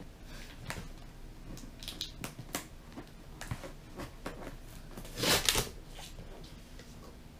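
Scissors slitting the packing tape on a cardboard box: a run of short scratching clicks and scrapes, then a louder tearing rasp about five seconds in as the box is pulled open.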